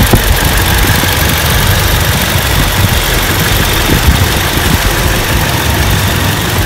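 Toyota Innova's four-cylinder petrol engine idling steadily, heard close up under the open bonnet. It runs smoothly, with no pinging or knocking.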